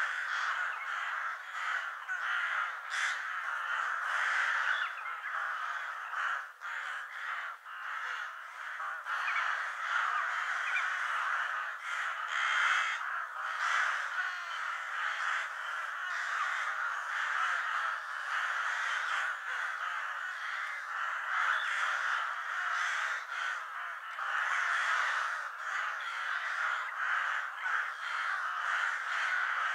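Crows cawing, many harsh calls overlapping into an unbroken stream.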